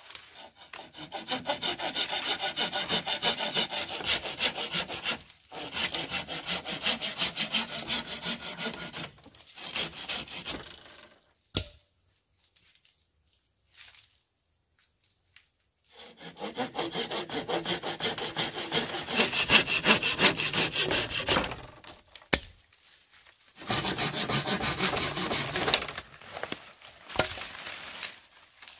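Saw cutting through wood in long runs of quick, even strokes. It stops for about four seconds near the middle, then resumes in shorter runs.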